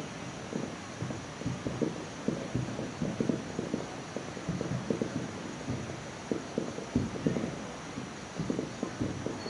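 Distant fireworks going off: a dense, irregular string of dull booms and pops, several a second.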